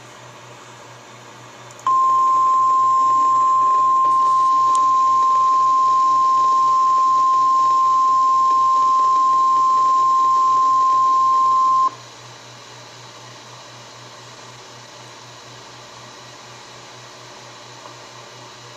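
Emergency-alert warning tone from a radio receiver: one steady, loud single-pitch tone of about 1050 Hz, typical of the NOAA Weather Radio alarm sent during a weekly test, starting about two seconds in and cutting off sharply after about ten seconds. Radio hiss and a low hum run underneath it.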